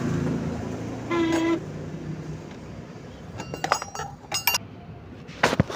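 Metal tools clinking: a spanner and puller knocking and ringing against the motorcycle's flywheel rotor in several sharp clicks, most in the second half.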